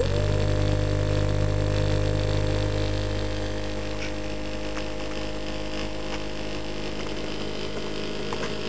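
Electronically driven electric motor spinning at a steady speed: a low hum with several steady whining tones above it, easing slightly in level about three seconds in.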